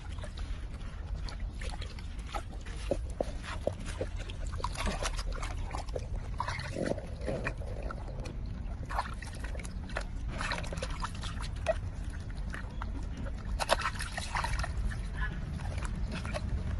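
Soapy water splashing and sloshing in a plastic basin as a wet kitten is washed by hand, with the kitten meowing several times.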